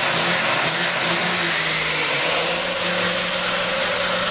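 Diesel semi-truck engines revving hard on a drag-strip start line, pouring black smoke, with a high whistle that rises over about two seconds and then holds steady.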